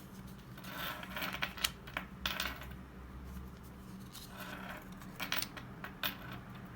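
Pokémon trading cards being handled: light rustles, flicks and clicks as cards and pack wrapper are slid and shuffled, in two clusters, over a steady low hum.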